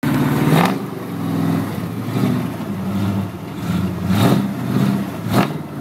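Ford F250's 302 (5.0 L) V8 through dual exhaust with Cherry Bomb Vortex mufflers, revving up and down under load as the truck climbs a loose dirt hill. A few brief thumps stand out, about half a second in, around four seconds in and near the end.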